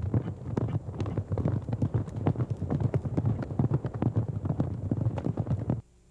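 Horses' hoofbeats at a rapid, dense clatter that cuts off suddenly near the end.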